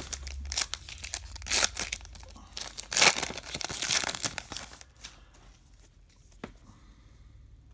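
Foil trading-card pack wrapper being torn open and crinkled in hand, a run of loud rustles that die down after about five seconds, with a single light click near the end.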